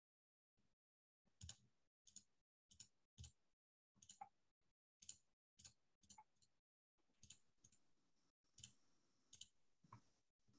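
Near silence broken by faint, irregular clicks, roughly one or two a second, likely from the computer at the call.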